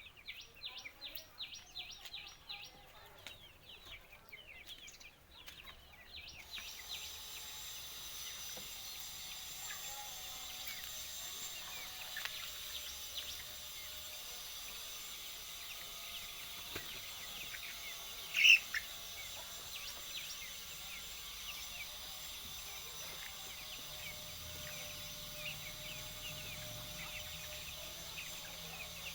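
Kadaknath chickens calling: a quick run of high chirps for the first six seconds, then many small chirps over a steady hiss. One louder call comes about two-thirds of the way through.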